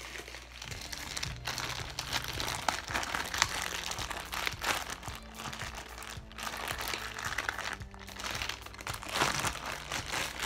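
Blue fluffy butter slime squeezed and stretched by hand, giving a dense crackling and squishing that stops briefly a few times.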